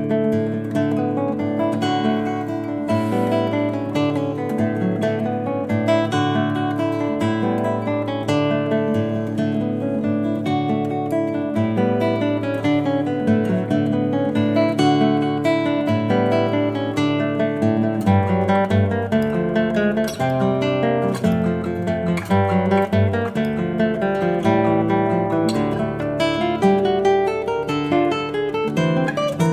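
Solo classical guitar playing a flowing melody of plucked notes over bass notes, with deeper bass notes sounding from about two-thirds of the way in.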